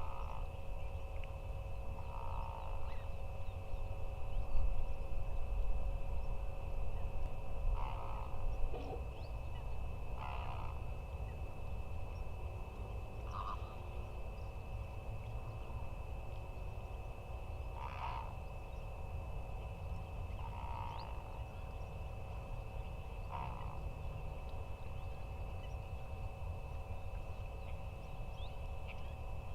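Wetland waterbirds (flamingos and mallards) calling now and then: short calls a few seconds apart, about eight in all, over a steady low rumble of wind.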